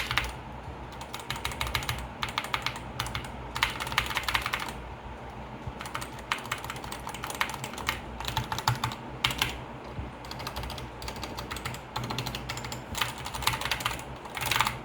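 Typing on a Skyloong GK61 60% mechanical keyboard with Gateron Red linear switches: rapid runs of key clicks and clacks, with a few brief pauses.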